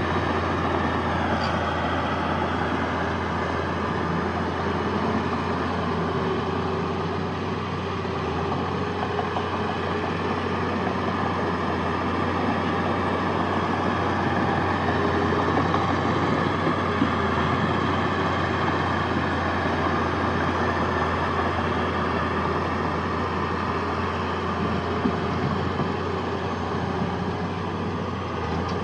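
Heavy diesel engine of earthmoving machinery running steadily, a deep, even drone under broad mechanical noise.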